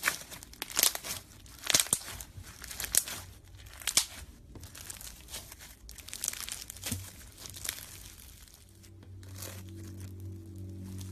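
Slime being squeezed and worked by hand, giving sticky crackling and popping sounds in irregular clusters. Music with low held tones comes in about nine seconds in.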